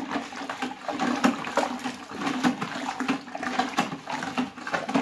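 A hand sloshing and stirring sorrel (hibiscus) drink in a plastic bucket, with irregular splashes several times a second, mixing sugar into it.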